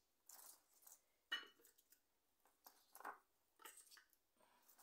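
Near silence with a few faint clicks and light scrapes of kitchenware being handled, one sharper click about a second in.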